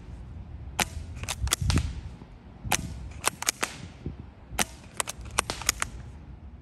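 Custom HPA Silverback SRS bolt-action airsoft sniper rifle, suppressed and run on a Mancraft SDiK at about 140 psi, firing in three quick groups about two seconds apart. Each group is a quiet shot followed by a short run of sharp clicks and clacks from the bolt being worked and .43 g BBs striking a steel plate target.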